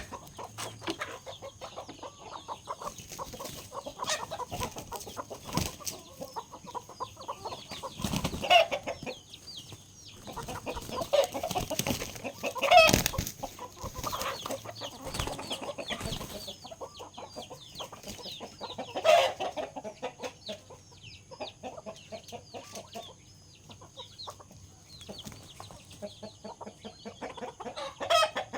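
A flock of chickens clucking continually, with a few louder calls standing out at intervals.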